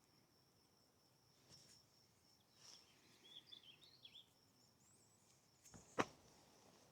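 Faint outdoor ambience: a steady high insect trill, a short chirping bird call about three seconds in, and a single sharp click near the end.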